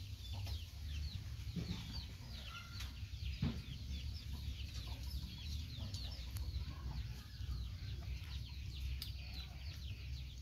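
Chicks peeping nonstop: many short, falling, high cheeps overlapping, over a low steady hum, with a few faint clicks.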